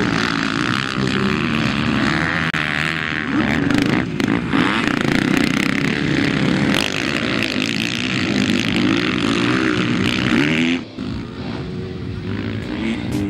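Motocross bike engines running hard, their pitch repeatedly rising and falling as they rev. The sound drops suddenly to a quieter engine about eleven seconds in.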